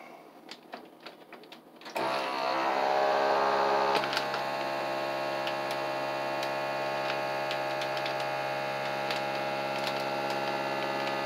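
FoodSaver vacuum sealer's pump starting about two seconds in and running with a steady hum, sucking the air out of a bag of chili; a few light clicks from the bag being fitted come before it.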